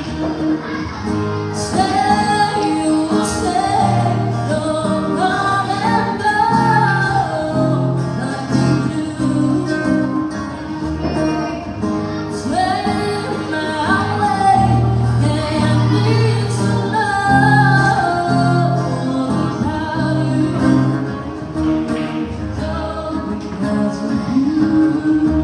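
Live acoustic duo: a woman singing into a microphone, accompanied by an acoustic guitar.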